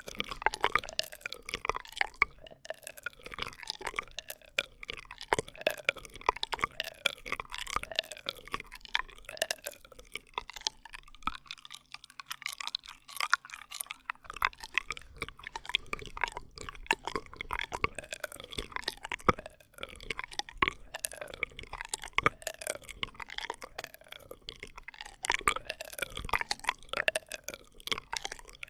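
Close-miked ASMR straw sounds: a continuous run of wet clicks and quick sliding squeaks, slightly sparser around the middle.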